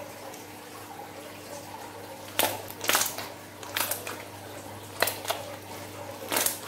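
A thick lump of slime being squeezed and pressed by hand, giving about six short wet squelches and pops from a couple of seconds in. A faint steady hum runs underneath.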